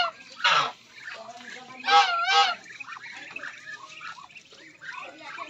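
Backyard poultry calling: a short loud call about half a second in, then a louder, wavering, honk-like call around two seconds in, with softer calls scattered between.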